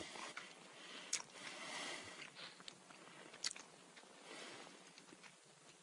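Faint sounds of someone eating hot food: soft bites and chewing, with two sharp clicks, one about a second in and one about three and a half seconds in.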